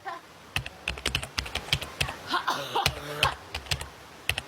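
A person sneezing over and over in a rapid run of short, sharp sneezes cut together, with a longer, fuller sneeze about halfway through.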